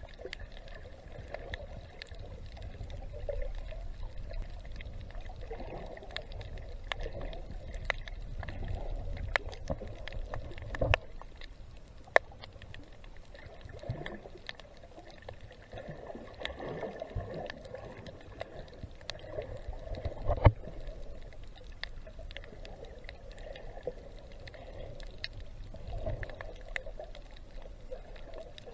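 Underwater sound picked up by a snorkeler's camera: a low rumble with swelling, gurgling water noise every few seconds and many scattered faint clicks. Two sharp thumps come about 11 and 20 seconds in.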